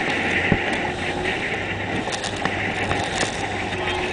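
Strong wind buffeting the microphone over rushing water on open water, with a steady low hum underneath and a few brief sharp knocks.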